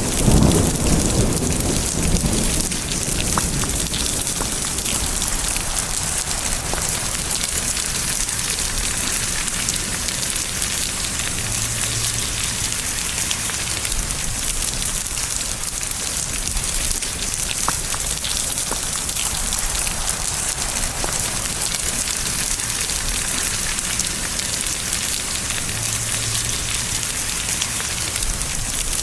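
Steady rain falling, an even hiss of many drops, with the rumble of thunder dying away over the first couple of seconds.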